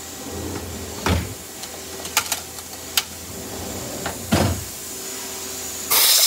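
Steady factory machine hum with a few clunks and sharp clicks, then a compressed-air blow gun hissing loudly near the end as it blows off the CNC lathe chuck.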